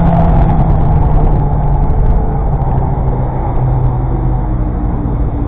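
A car's engine running at low, fairly steady revs while driving, easing off slightly as the car slows in traffic, over steady road noise.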